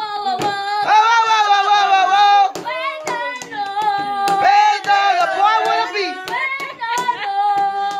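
Children singing a birthday song, holding long notes, with repeated hand claps.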